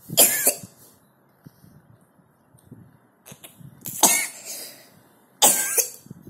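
A three-year-old child coughing on waking: three separate coughs, one just at the start and two more near the end, about a second and a half apart.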